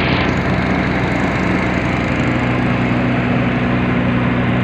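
A river boat's engine running steadily under way: an even, low drone over a constant rushing hiss.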